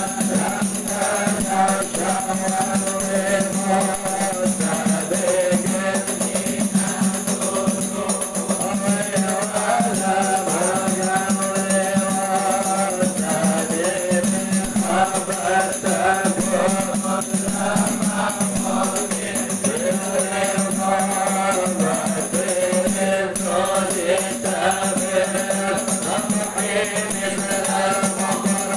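Group of men chanting Islamic sholawat (devotional praise of the Prophet) together, led by a singer on a microphone, with rebana frame drums accompanying.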